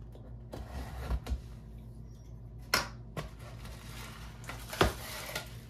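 Tape and a cardboard shipping box being handled: soft scraping and rustling, broken by two sharp snaps, the louder one about a second before the end.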